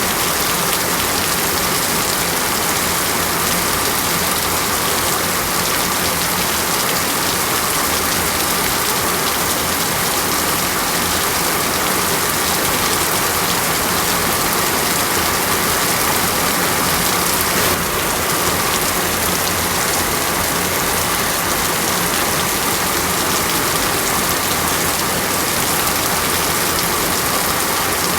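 Heavy, steady tropical rainforest rain pattering on foliage and surfaces, an even unbroken downpour with a faint steady tone underneath. One brief tick sounds about eighteen seconds in.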